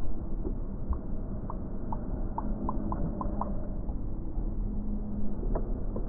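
Slowed-down sound of an English bulldog moving about: a deep, steady rumbling with a run of about eight faint ticks between one and three and a half seconds in, and a sharper click near the end.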